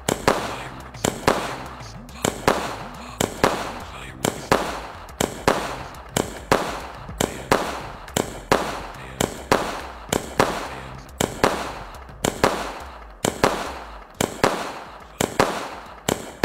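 Multi-shot skyshot firework cake firing shells in a steady, even series, a bit more than one shot a second; each shot is a sharp double report that dies away before the next, as the shell launches and then bursts with a bang.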